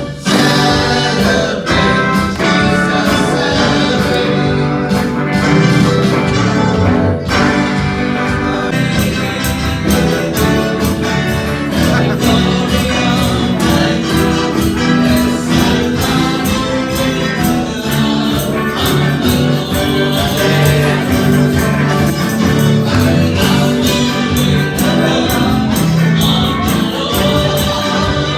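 Christian worship song with singing over instrumental backing and a steady beat.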